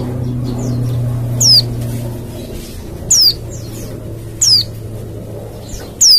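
White-eye (pleci) calling: sharp, high chirps that sweep downward in pitch, a loud one about every second and a half with fainter chirps in between.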